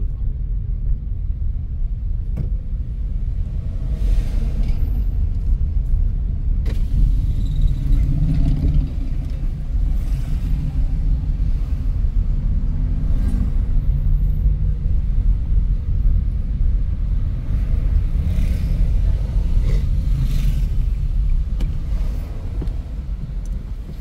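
A car driving along a town road, heard from inside: a steady low rumble of engine and road noise, with a few faint knocks.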